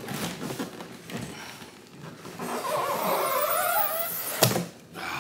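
A cardboard box being opened by hand: rustling and scraping of cardboard, a wavering squeak of packaging rubbing in the middle, and one sharp knock near the end.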